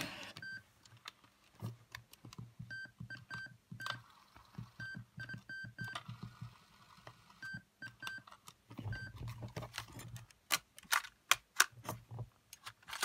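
Sony WM-FX811 Walkman giving short, identical key-press beeps as its buttons are pressed, about fifteen in the first nine seconds, some in quick runs. From about ten seconds in come sharp plastic clicks and handling as the player's cassette door is opened.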